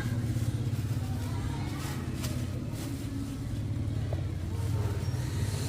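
An engine running steadily with a low, fast-pulsing hum.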